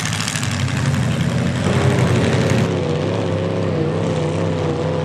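Lifted four-wheel-drive mud truck's engine working hard as it churns through a deep mud hole. For the first couple of seconds mud and water hiss under the engine; after that a steady engine note carries on, its pitch wavering up and down with the throttle.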